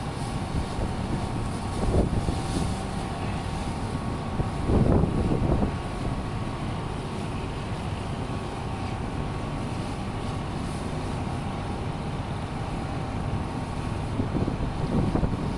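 Lifeboat engine running steadily at full speed during a test run, with brief louder surges of noise about two and five seconds in and near the end.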